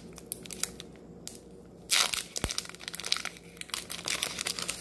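Foil wrapper of a Pokémon booster pack crinkling and crackling as it is worked at by hand, a pack that is hard to open, with a louder burst of crackling about two seconds in.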